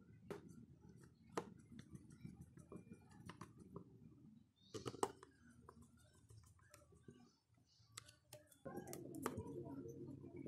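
Faint, scattered clicks and ticks of a small screwdriver turning and seating the screws of a Xiaomi Redmi 4A's plastic midframe, with a quick cluster of sharper clicks about five seconds in. A steadier low background hum comes in near the end.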